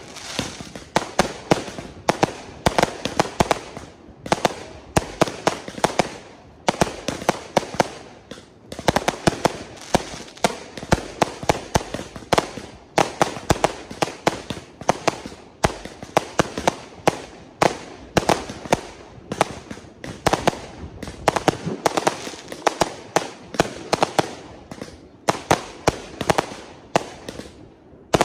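Aerial fireworks going off in rapid succession: a dense string of bangs, several a second, with crackling between them and a few short lulls in the first ten seconds.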